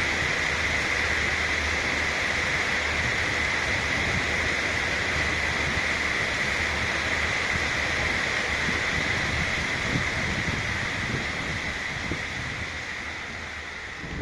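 Steady rushing noise of heavy rain and wind with a low rumble underneath, as heard on a moving train; it fades over the last few seconds.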